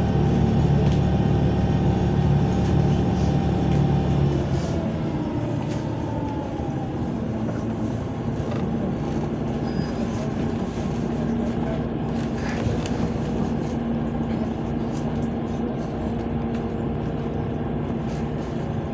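Cabin sound of a MAZ 203 city bus on the move: the diesel engine drones loudly, then its note drops and quietens about four and a half seconds in, leaving a steadier, lower running hum with road noise.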